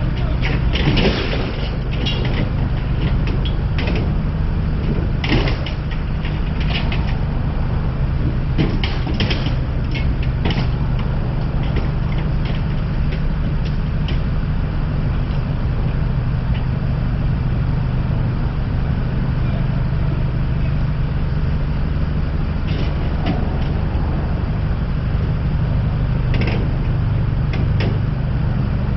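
A large truck engine running steadily, with scattered metallic knocks and clanks, most of them in the first ten seconds and a couple more near the end.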